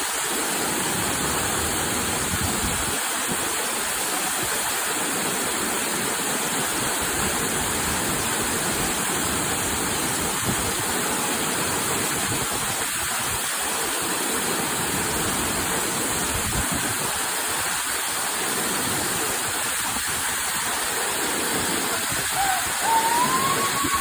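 Large waterfall rushing with a steady roar of falling water. Near the end, a brief high call rises and falls once.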